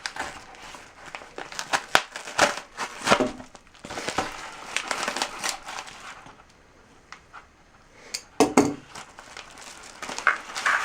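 Parcel packaging crinkling and rustling as it is opened by hand, in irregular bursts with a few sharp knocks. It goes quiet for a couple of seconds about six seconds in.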